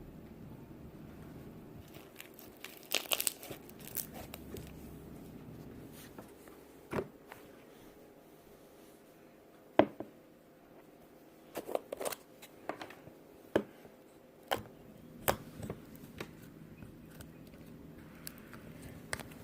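Slime being handled by hand, giving scattered sharp pops and crackles, starting about three seconds in, with the loudest pop about halfway through.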